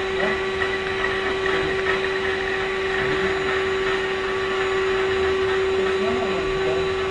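Vacuum cleaner running steadily, its motor giving a constant whine over a rushing hiss.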